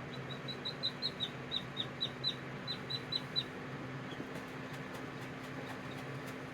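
Chicken chick peeping: a quick run of about fourteen short, high peeps, each dropping a little in pitch, about four a second, stopping about three and a half seconds in. A steady low hum runs underneath.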